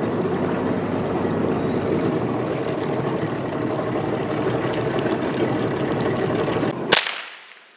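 Small boat's motor running with water rushing along the hull, a steady noisy drone. Near the end a sharp click cuts it off and the sound falls away.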